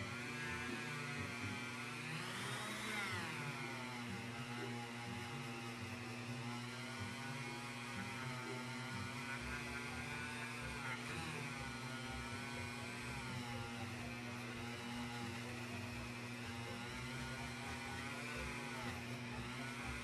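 Dremel rotary tool running with a felt polishing wheel on a Zippo lighter's metal case, a steady motor whine whose pitch sags and recovers a few times as the wheel is pressed onto the case, over a steady low hum.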